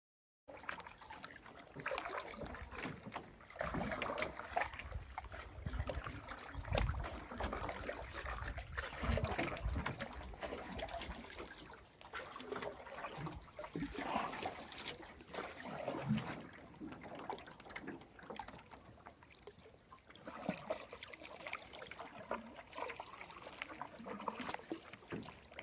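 Canoe paddle strokes: water trickling and splashing off the blades as they dip and pull, in uneven surges.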